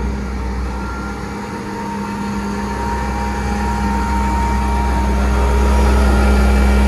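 A 1997 Toyota 6FG28 forklift's petrol/LPG engine idling steadily, growing louder toward the end.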